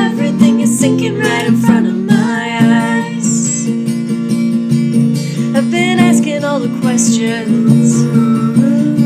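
Acoustic guitar strummed as the instrumental part of a slow song.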